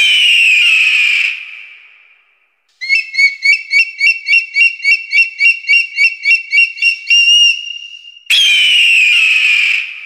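Eagle calls: a long, shrill scream falling in pitch, then a rapid run of piping chirps, about four a second, ending on a held note, and a second falling scream near the end.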